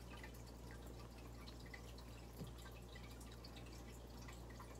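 Near-silent room tone: a low steady hum with faint scattered small ticks, and one soft click about two and a half seconds in.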